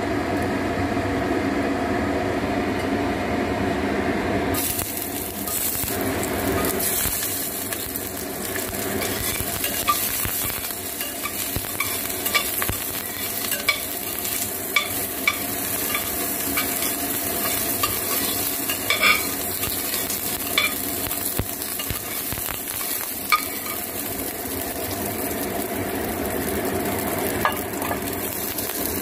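Ginger and shallots hissing in a hot clay pot, with a metal spatula scraping and clicking against the pot now and then. A steady hum in the first few seconds cuts off suddenly.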